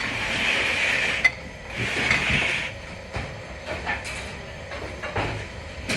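Dishes and utensils clinking and knocking while dishes are washed, with two stretches of hissing noise in the first few seconds.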